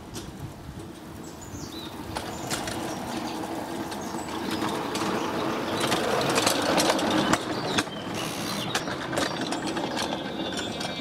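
Battery-electric 7¼-inch gauge ride-on locomotive running on the track: a steady electric-motor hum with clicking and clattering of the wheels on the rails. It grows louder as the loco approaches and is loudest about six to seven seconds in, as it passes close by.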